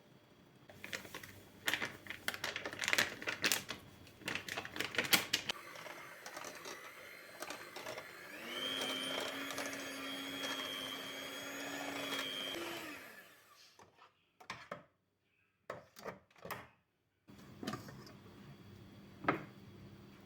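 Small electric kitchen appliance motor running for about seven seconds, settling into a steady hum with a high whine after a couple of seconds, then stopping. Clicks and knocks of handling come before it and a few sharp clicks after.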